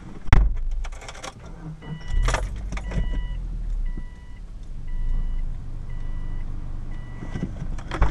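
A car's warning chime beeping evenly about once a second, six times, with keys jangling. A sharp thump comes just after the start and another near the end.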